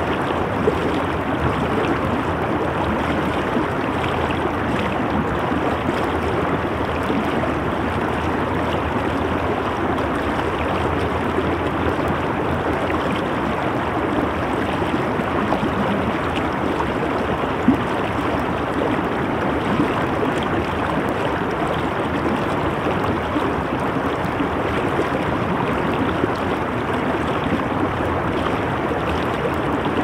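A fast river flowing: a steady, unbroken rush of water.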